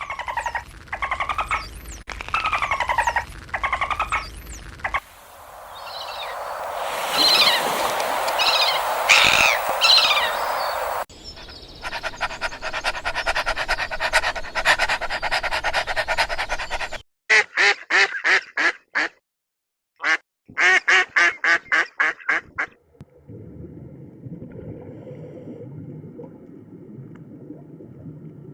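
A run of different animal calls cut one after another: repeated short calls for the first five seconds, a noisy stretch with high chirps, a fast even rattle, two bursts of rapid pulsed calls, and a low steady noise near the end.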